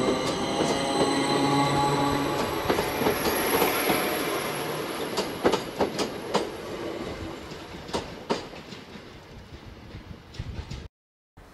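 Electric multiple unit pulling out past the platform: traction motors hum with tones that step up in pitch, and the wheels click over rail joints. The sound fades as the last coach goes by. Near the end the sound cuts out for a moment.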